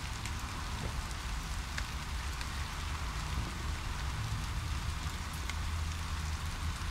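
Steady rain pattering on wet paving and a plastic sheet, with scattered faint drop ticks, over a low steady rumble.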